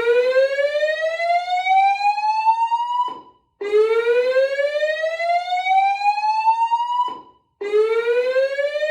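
School fire alarm voice-evacuation system sounding its whoop tone: a loud, buzzy rising sweep of about three and a half seconds, repeated after half-second breaks. One sweep ends about three seconds in, a second follows, and a third starts near the end.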